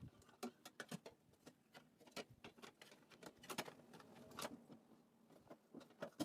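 Faint, irregular clicks and taps of hands fitting a hard drive into a desktop PC case.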